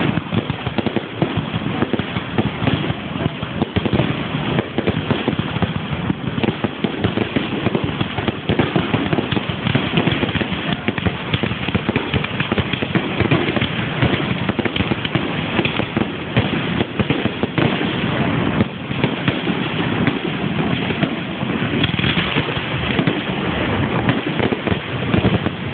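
Fireworks display: a dense, continuous barrage of bangs, one on top of another with no pause.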